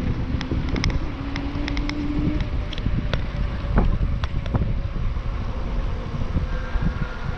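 Wind buffeting the microphone and tyre rumble while riding an e-bike on an asphalt path, with scattered light clicks and a faint steady hum for about the first two seconds.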